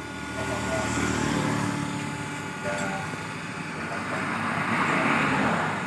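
Hydraulic cutting and stamping press running, its motor giving a steady low hum, with a hissing swell that builds from about three and a half seconds in.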